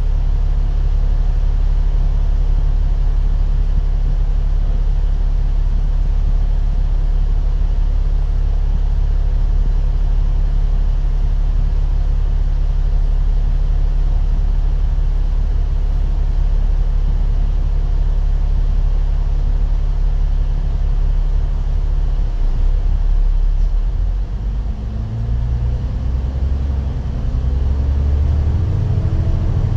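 Alexander Dennis Enviro 500 double-decker bus's diesel engine idling steadily while the bus stands in traffic, heard from inside the upper deck. About 24 seconds in, the engine revs up with rising pitch as the bus pulls away.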